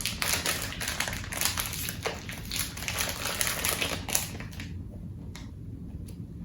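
Crinkly plastic snack wrapper being handled and torn open, a quick run of crackles and clicks that stops about four and a half seconds in.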